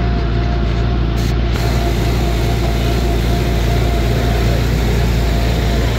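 Diesel engine of an ACE mobile crane running steadily close by: a deep, even rumble with a faint steady tone above it.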